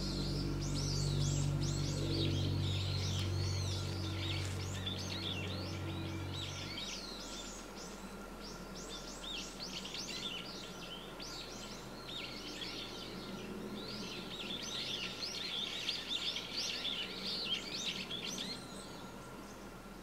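A flock of small birds chirping and twittering, many short quick calls overlapping throughout. Under them a low steady hum cuts off abruptly about seven seconds in.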